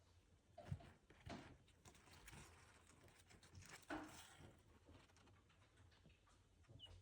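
Near silence with faint rustling and a few soft knocks of week-old baby chicks shifting in their bedding, and one brief high peep near the end.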